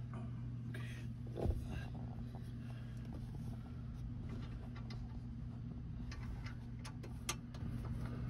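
Scattered small metal clicks and taps of hand work with a stubby screwdriver driving a mounting screw, including a duller knock about a second and a half in and a few sharp clicks near the end, over a steady low hum.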